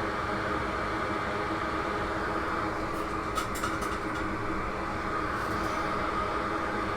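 Steady whirr of a fan-driven bench machine, with a few faint ticks about three and a half seconds in and again later.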